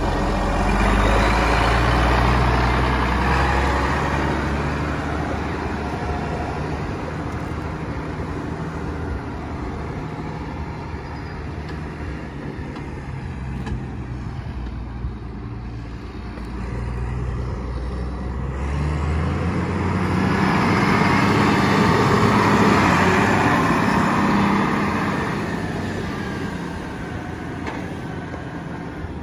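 International Harvester 5088 tractor's six-cylinder turbocharged diesel running as the tractor drives off, its note fading with distance, then swelling loud again about twenty seconds in as it comes back past, and fading near the end as it pulls away.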